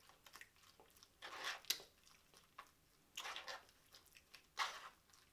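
Close-up eating sounds from a mouthful of KFC Famous Bowl (mashed potatoes, corn, gravy and chicken): soft, wet chewing noises coming about every second and a half, with one sharp click near the middle.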